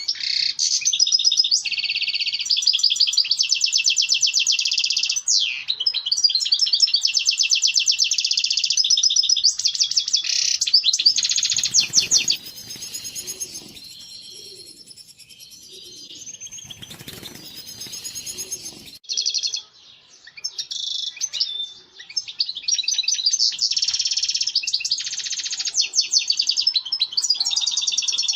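European goldfinch singing its breeding-season song: fast, twittering, trilling phrases run almost without pause, with a quieter gap of several seconds about halfway through before the song picks up again.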